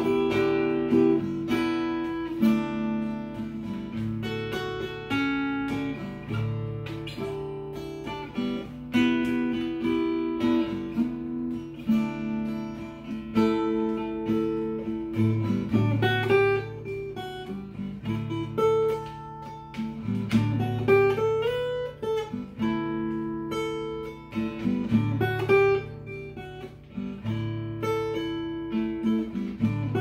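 Small-bodied acoustic guitar played solo and fingerpicked: recurring bass notes under a picked melody, with no singing.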